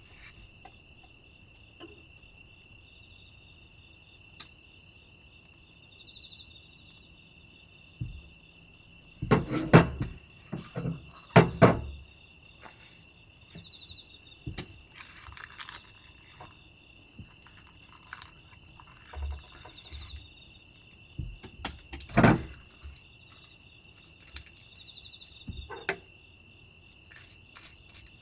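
Earthenware pot lid and ceramic bowls handled on a wooden counter. Scattered clunks and clatters are loudest about ten seconds in, again a second and a half later, and once more near twenty-two seconds, with softer knocks between. Under them, crickets chirp steadily in a high, pulsing chorus.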